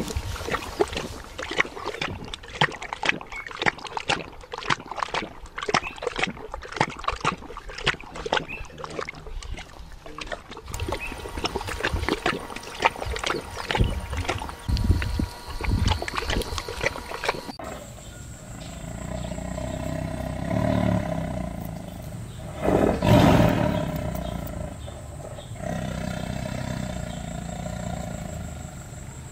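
A husky lapping water from a travel water bottle's trough, quick wet laps in rapid succession. A little over halfway through it cuts to a tiger growling, with one louder roar a few seconds later.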